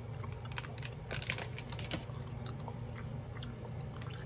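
Wet clicks and smacks of a mouth chewing gummy candy close to the microphone, densest in the first couple of seconds and sparser after. A steady low hum runs underneath.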